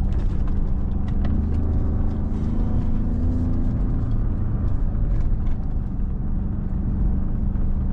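2017 Ford Raptor's twin-turbo EcoBoost V6 running under load from inside the cab as the truck drives a rough dirt track, the engine pitch rising in the first half and easing back. A few short knocks and rattles come through over bumps.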